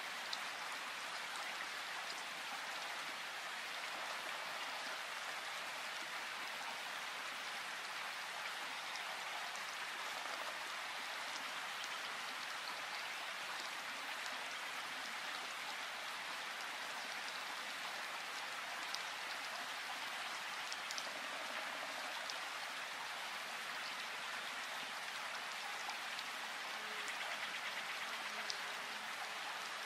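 Steady rain falling in a forest: an even hiss of rainfall with scattered single drops ticking.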